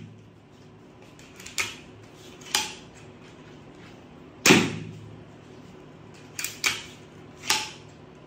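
Alligator II crossbow with a DA01 magazine being shot: one loud sharp snap of the string release about halfway through, with lighter clacks of the cocking and loading action before and after it.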